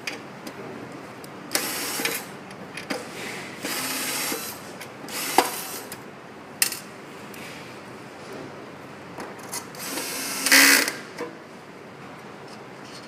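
Small parts and tools being handled during an electronics repair: scattered sharp clicks and several short scraping rattles, the loudest about ten seconds in.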